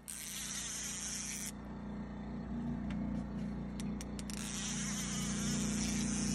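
A baitcasting reel's drag buzzing as a hooked catfish pulls line off against it, in two runs: one of about a second and a half at the start and a longer one from about four seconds in, with a few sharp ticks between.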